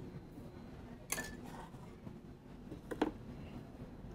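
Two light clinks of a kitchen utensil against dishes or a glass jar, about a second in and again about three seconds in, over quiet room noise.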